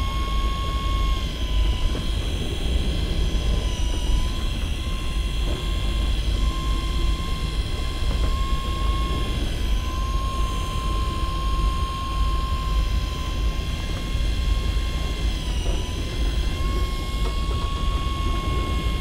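Fishing boat's engine running, a steady low drone, with a high-pitched whine over it that dips slightly in pitch every few seconds.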